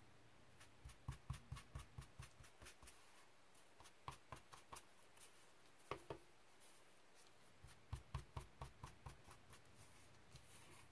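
Ink blending tool dabbing distress ink onto the edges of a fabric tag: quick runs of light taps, several a second, in three bursts, with one sharper knock about six seconds in.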